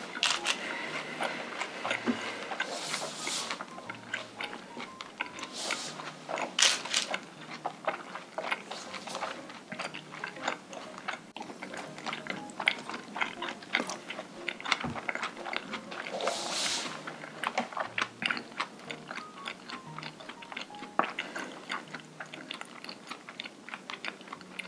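Close-miked chewing and biting of boiled pork and pork hock, with many small wet clicks and crunches. Soft background music with low notes plays underneath.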